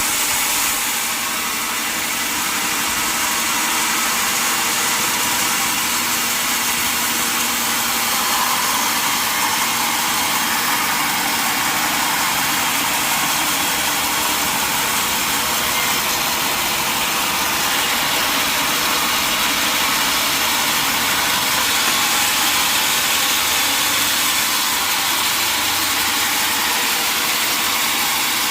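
Sawmill log saw running steadily: a continuous, even, hissing machine noise that holds its level throughout.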